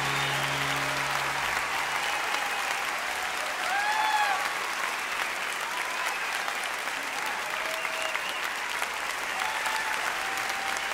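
A crowd clapping and cheering, with a few voices calling out. The tail of a song fades out in the first two seconds.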